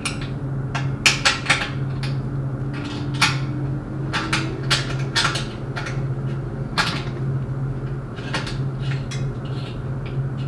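Irregular metallic clinks and taps of stainless-steel sanitary fittings as a clamp is fitted and closed around the mixer body's port, over a steady low hum.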